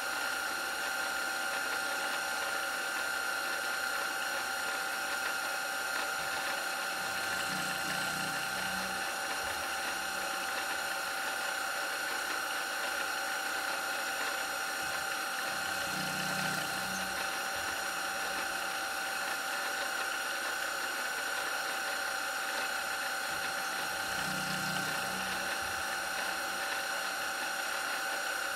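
CNC mill's end mill cutting a white Delrin workpiece on a 4th axis: the spindle runs with a steady whine over a hiss. A low rumble swells three times, about eight seconds apart.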